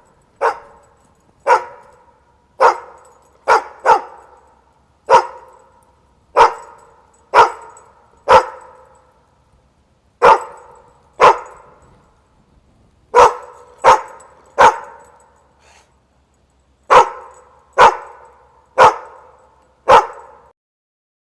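A dog barking: about eighteen single barks at irregular intervals, some in quick pairs, with short pauses between groups.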